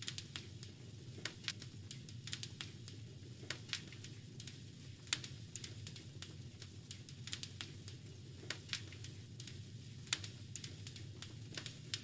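Wood fire crackling, with irregular sharp pops and snaps, a few of them louder, over a steady low rumble.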